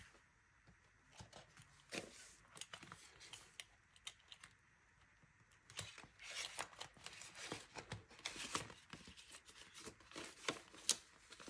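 Clear plastic zipper cash envelopes in a ring binder crinkling and paper bills rustling as they are handled, with scattered small clicks. Sparse at first, busier about halfway through.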